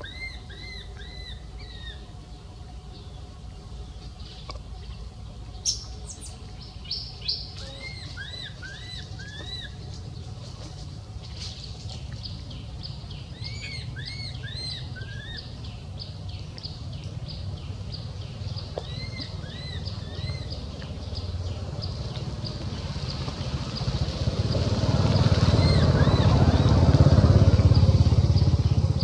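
Series of short, high, arched chirping calls, repeated several to a second. From about three-quarters in, a motor vehicle's engine grows loud and passes close, drowning them near the end.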